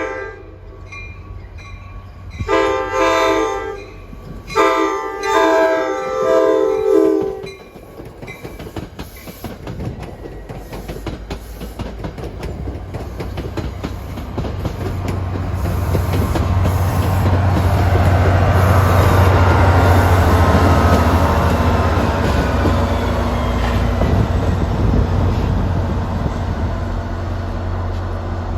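Diesel locomotive's multi-note air horn sounding a series of blasts as the train approaches. The train then passes close by, loudest about two-thirds of the way through, with a steady engine hum and wheels clacking over the rail joints, and its pitch falls as it goes by.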